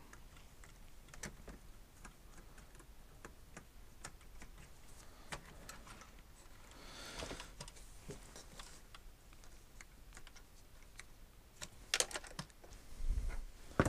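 Faint scattered clicks and taps of hard plastic parts being handled as an RC truck's snow-track unit is fitted onto its axle, with a soft rustle about seven seconds in and a louder cluster of clicks near the end.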